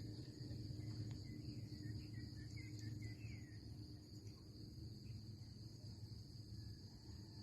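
Outdoor ambience of steady, high insect trilling, with a few short bird chirps in the first half, over a faint low rumble.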